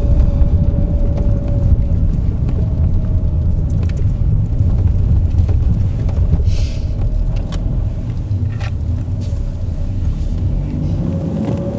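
Car driving, heard from inside the cabin: a steady low rumble of engine and road noise with a faint steady hum, and a brief hiss about six and a half seconds in.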